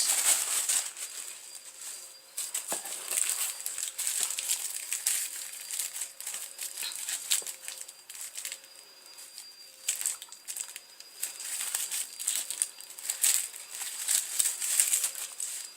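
Paper packaging crinkling and rustling in irregular handfuls as a wrapped product is unwrapped by hand, with a faint steady whine from a running vacuum cleaner underneath.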